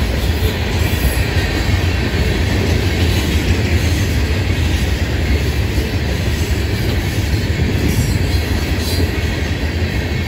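Freight train of hopper cars rolling past close by: a steady low rumble of steel wheels on the rails.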